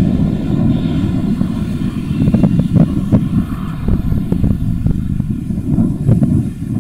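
Four Aviadvigatel PS-90A-76 turbofans of an Ilyushin Il-76TD-90VD at approach power, a loud low rumble as the gear-down jet passes overhead on final approach.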